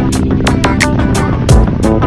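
Music with a steady drum beat: quick, evenly spaced cymbal ticks over sustained pitched instruments, with a deep kick drum hit about three-quarters of the way through.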